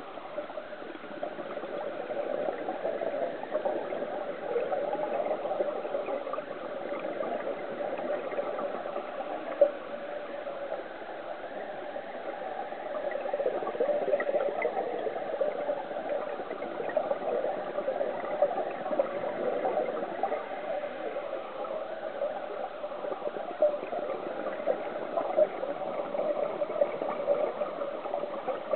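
Underwater ambience on a scuba dive: a steady gurgling, crackling hiss with a few small clicks.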